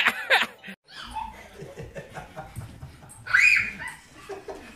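A baby laughing in short, high giggles that break off under a second in. After a brief gap there is a low rumble, with one high squeal about three and a half seconds in.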